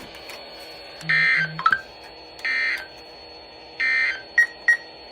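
Three short bursts of NOAA Weather Radio SAME digital data tones, the end-of-message code that closes an Emergency Alert System warning. Each burst is a buzzy two-tone warble of about half a second, about 1.4 s apart. A short chirp follows the first burst, and two brief, loud blips follow the third.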